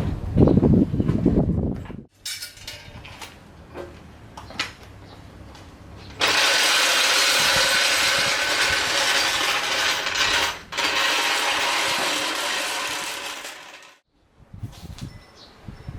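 Faint clicks and handling noises, then a loud steady hiss for about eight seconds with a brief break in the middle, cutting off near the end.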